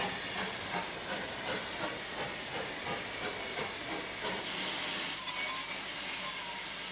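Real steam locomotive working at slow speed: steady exhaust beats about two and a half a second over a hiss of steam. A thin high tone comes in about four and a half seconds in.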